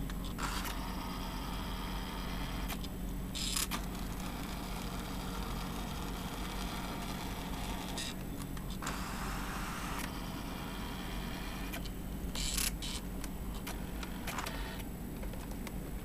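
Brother EP-43 thermal typewriter printing its built-in demo page: a steady whirring buzz from the print mechanism as it works across each line, broken every few seconds by brief pauses and clicks between lines.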